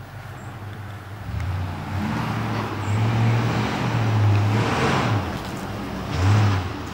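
1954 Chevrolet pickup truck's engine running with a steady low rumble, swelling in loudness a few times and loudest about six seconds in.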